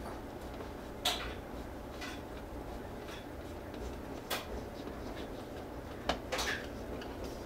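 A handful of sharp plastic clicks and knocks, spaced a second or more apart, from hands working a digital thermostat's wall plate, over a steady low hum.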